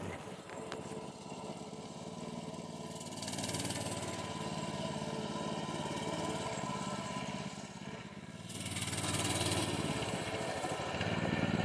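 Riding lawnmower's small engine running steadily. It gets louder about three seconds in, drops briefly near eight seconds, then rises again.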